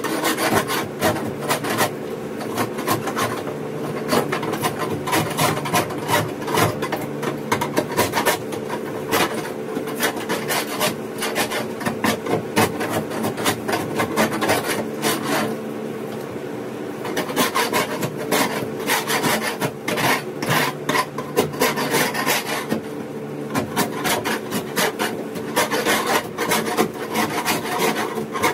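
Long-handled scraper rasping old foam off a fiberglass boat hull bottom in quick, irregular strokes, with a couple of short pauses, over a steady low hum.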